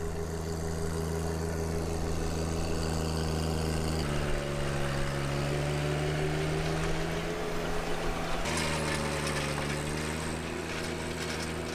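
John Deere 1025R sub-compact tractor's three-cylinder diesel engine running steadily under load while driving a King Kutter rotary tiller, with a slight shift in pitch about four seconds in.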